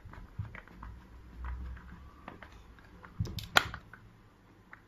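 Small scattered clicks and knocks of metal lock hardware being handled and fitted on a door during installation of a mechanical push-button lock, with a sharper few clicks about three seconds in.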